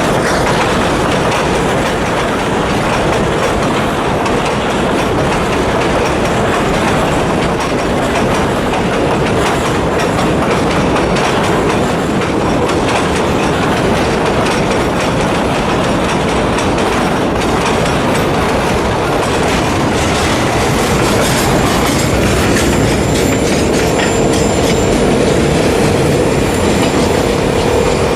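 Empty freight hopper wagons rolling past on the rails with a steady clickety-clack of wheels over rail joints. In the last third a faint, high wheel squeal and a steadier tone join the rumble.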